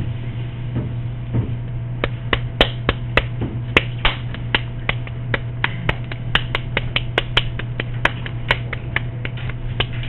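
Hands patting and slapping a lump of wet clay to pound it into shape. A quick, irregular run of sharp slaps, about three or four a second, starts about two seconds in.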